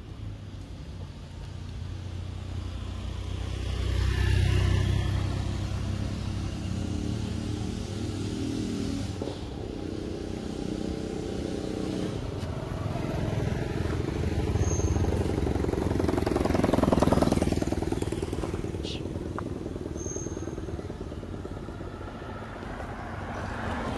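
Motor vehicles passing on a road, their engines swelling up and fading, with one passing about four seconds in and another around seventeen seconds.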